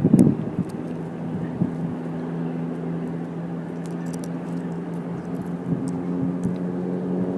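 An engine running steadily at an even, low pitch, after a short gust of wind on the microphone at the start. Faint small ticks sit over the hum.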